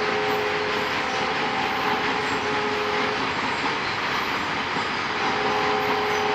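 Freight train wagons rolling past with a steady rumble and clatter. A faint steady tone is heard twice over it, for about three seconds at the start and again near the end.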